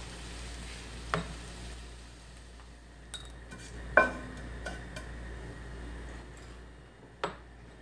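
A wooden spoon knocking and scraping against a Korkmaz stainless steel pot while stirring whole spices in oil, with a faint steady hiss underneath. There are a few sharp knocks; the loudest, about four seconds in, leaves a short metallic ring.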